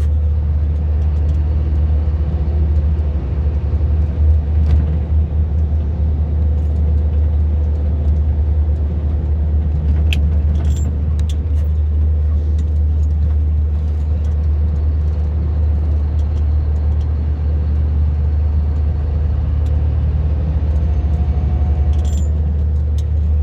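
Steady low rumble of a moving vehicle's engine and road noise heard from inside the cab, with a few light clicks or rattles around the middle and near the end.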